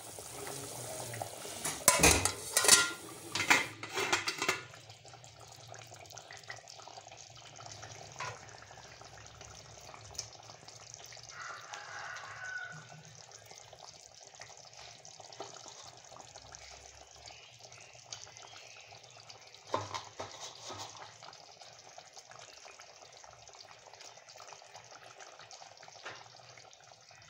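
A pot of curry bubbling at a simmer, a faint steady hiss, with a spoon knocking sharply against the aluminium pot several times in the first few seconds and a few light clicks later.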